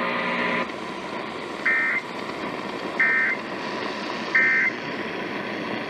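Three short bursts of buzzy two-tone SAME data from a NOAA Weather Radio receiver, about a second apart, over steady radio static: the end-of-message code that closes the weekly test. A brief louder crackle of noise comes at the very start.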